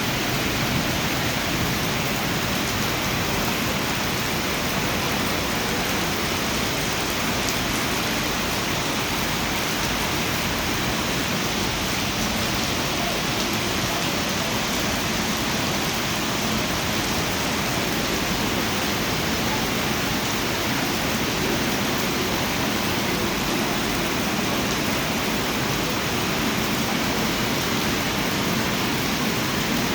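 Heavy rain falling in a steady, even downpour hiss.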